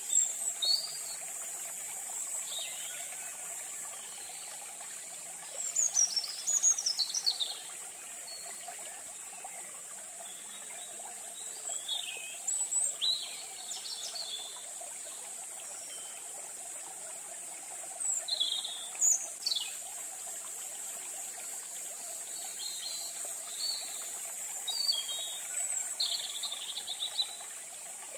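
Birds chirping and calling every few seconds in short phrases, some with quick down-slurred whistles, over a steady high-pitched insect drone.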